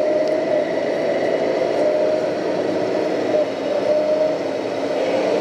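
A radio-controlled scale excavator and tipper truck running: a steady mechanical hum with a wavering whine.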